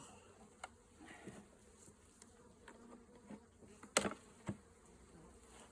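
Honeybees buzzing around an open hive, with scattered light clicks. Two sharp knocks come about four seconds in, half a second apart.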